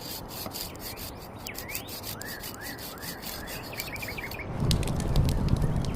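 Forest ambience: short rising bird chirps repeat over a dense crackling and rustling texture. A low rumble comes in about three-quarters of the way through and becomes the loudest part.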